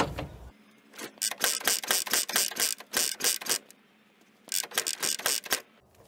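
Ural flat-twin engine being cranked over in two bursts, turning with rapid mechanical clicking and rattling but not firing. This is a failed start attempt.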